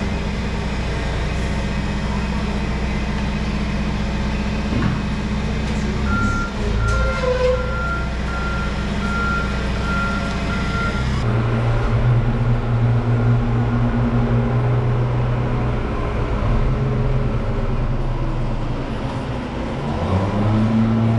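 A truck engine running, with a backup alarm beeping at an even pace for about five seconds starting about six seconds in. About eleven seconds in, the engine sound changes suddenly to a deeper, stronger note.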